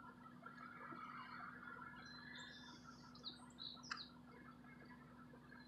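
Faint bird chirps, a few short high calls, over a quiet open-air background with a low steady hum. One brief click comes about four seconds in.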